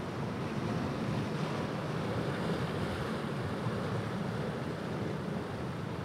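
Ocean surf washing onto the shore, an even, steady rushing with no single crash standing out.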